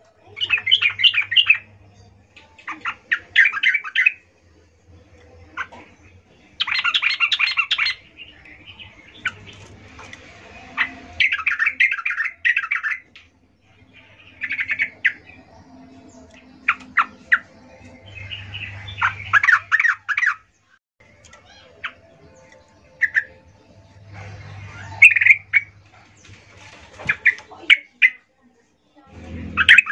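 Yellow-vented bulbul (trucukan) giving bursts of rapid chattering calls, each lasting up to about two seconds and repeated every few seconds. This is the female's call, used to lure males into singing.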